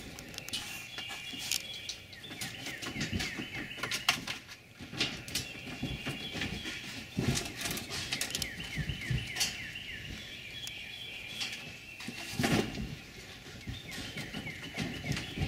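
Wild songbirds chirping in runs of quick repeated notes, over scattered clicks and knocks, with one louder knock about twelve seconds in.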